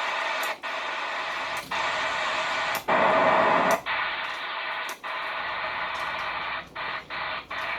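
CB radio receiver hissing with band static, cut by several brief dropouts and a louder burst of noise about three seconds in, as the operator listens for skip signals on a poor propagation night.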